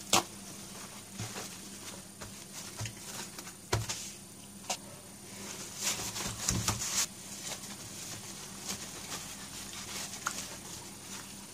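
Paper towels crinkling and rustling as hands press and pat a raw salmon piece dry. Scattered sharp clicks and taps run through it, with one right at the start and a busier stretch a little past halfway.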